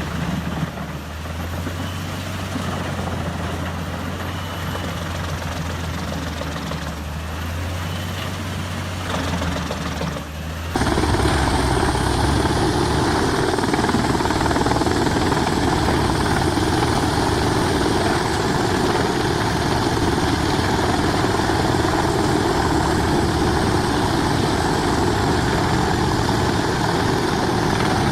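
Heavy diesel-powered forestry wood chipper running steadily with a low engine hum. About ten seconds in, the sound cuts abruptly to a louder, fuller, steady machine noise.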